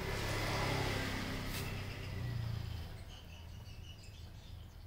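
A low, steady engine-like hum with a rushing noise that fades away about three seconds in, and a short click about a second and a half in.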